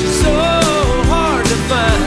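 Background music: a rock-style song, a voice singing over drums and guitar.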